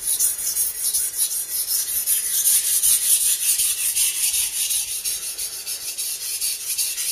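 Masahiro kitchen knife blade being stroked back and forth on a wet Japanese waterstone, a quick, even rhythm of gritty scraping several strokes a second as the slurry (mud) builds on the stone.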